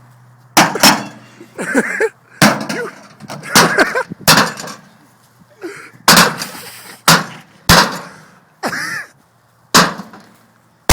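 A microwave oven being smashed to pieces: about a dozen hard blows at uneven intervals, roughly one a second, each a clang of its metal case, some with breaking glass and a short ring afterwards.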